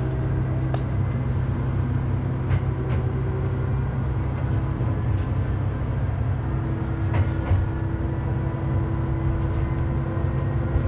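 Tsugaru 21 diesel railcar running at low speed, heard from inside the cab: a steady low engine drone with a few steady tones above it and scattered short clicks.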